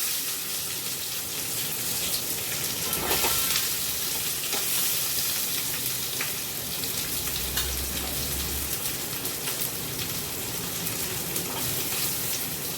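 Chopped onions frying in hot sesame oil in a pan, a steady sizzling hiss, with a few faint knocks from stirring.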